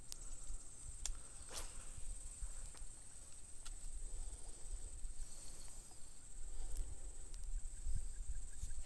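Insects chirring steadily, one high thin tone, with a few short sharp clicks and a low rumble underneath.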